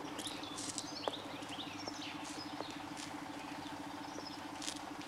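Faint bird chirps and short gliding calls, mostly in the first couple of seconds, over a steady low hum, with a couple of light clicks.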